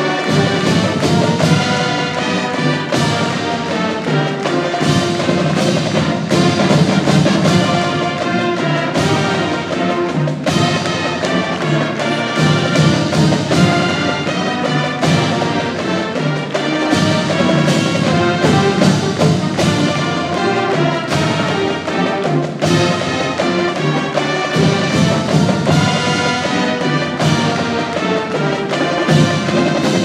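High school marching band playing at full volume: brass with sousaphones over drums and front-ensemble percussion, with frequent sharp drum hits.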